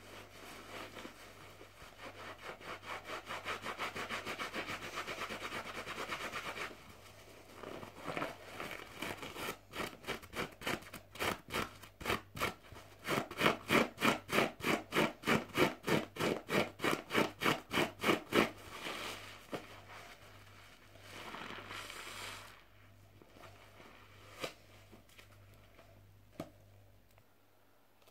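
Wet soapy sponge scrubbed and squeezed in a basin of suds, in rhythmic strokes. The strokes are strongest in the middle stretch, at about three a second, and turn quieter and looser in the last third.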